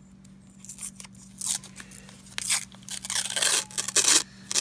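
Paper wrapper of a roll of half dollars being torn open by hand: a series of short crackling tears that come faster and louder toward the end.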